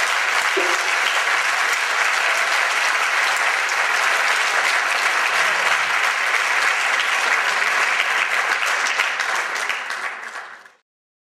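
Audience applauding steadily in a theatre hall, easing slightly near the end and then cutting off suddenly.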